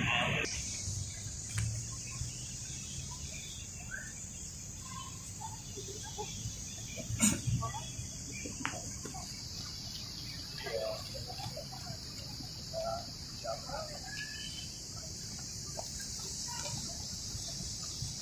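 Faint open-air park ambience: a steady high-pitched buzz with scattered short, faint chirps and one brief knock about seven seconds in.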